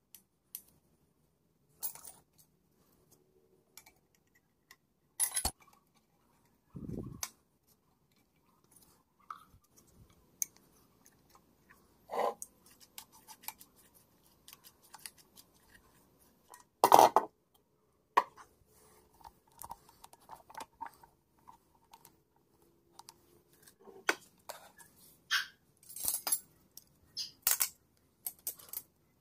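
Scattered clicks and metallic clinks of small steel parts and a hand tool being handled and fitted on an old Singer sewing machine head, at irregular intervals, with one dull low knock about seven seconds in.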